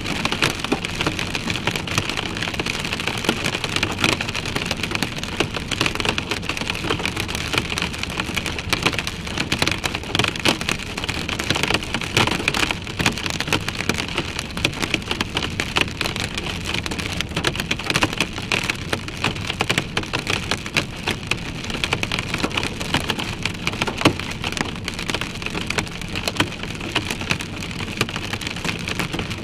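Heavy rain pelting a moving vehicle's roof and windshield, heard from inside the cab: a dense, steady patter of sharp drop impacts, with one louder knock late on.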